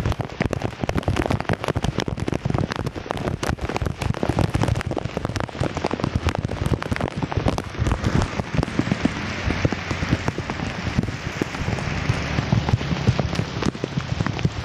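Rain pattering close to the microphone: a dense, unbroken crackle of drop impacts.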